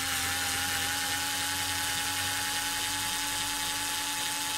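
Bosch electric screwdriver running steadily with a high motor whine, its pitch creeping up slightly, as it undoes a nut on the rear cover of a Lucas ACR alternator.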